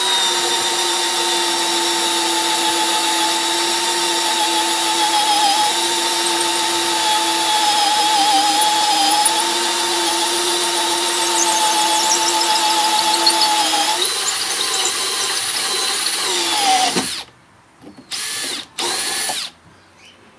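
Makita XPH07 18V brushless cordless drill on its lowest speed, driving a 2-inch bi-metal hole saw through 32 mm-thick hardwood: a steady whine that wavers slightly under load. The sound changes about three-quarters of the way through, then stops, followed by two short bursts.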